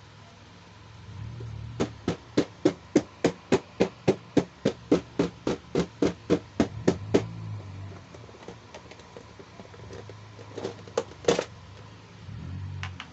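A steady run of about twenty sharp clicks, a little over three a second, lasting about five seconds. A few more scattered clicks follow near the end.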